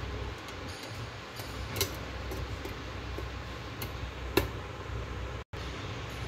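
Steady low background hum with two short, light clicks, one a little under two seconds in and a louder one past four seconds; the sound drops out for an instant near the end.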